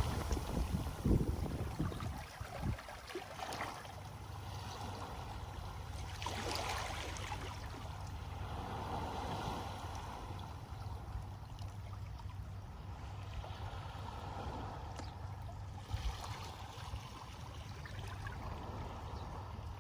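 Sea water trickling and gurgling among beach pebbles after a wave, the wash fading over the first two seconds, over a steady low rumble.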